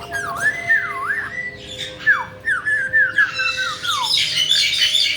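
Caique calling: a run of squeaky whistled notes that swoop down and up, then several short falling whistles, ending in a burst of sharper, higher squawks.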